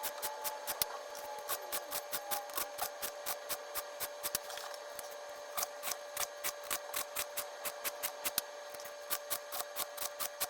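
A hand file stroking across the cutter teeth of a Stihl 440 Magnum chainsaw chain, a rhythmic rasp of about three strokes a second. There are brief pauses about four and eight seconds in as the filing moves on to the next tooth.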